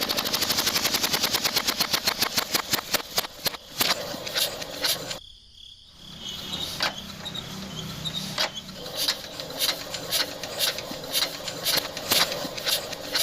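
Rapid mechanical clicking, about ten clicks a second, slowing down and stopping about five seconds in, then resuming as slower, irregular clicks.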